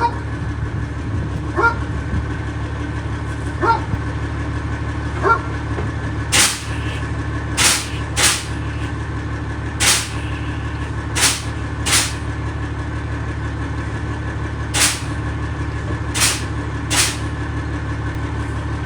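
School bus engine idling steadily while the air brake pedal is pressed and let off, each release giving a short sharp hiss of exhausting air: about nine hisses, spaced roughly a second or two apart, starting about six seconds in. A few fainter clicks come before them.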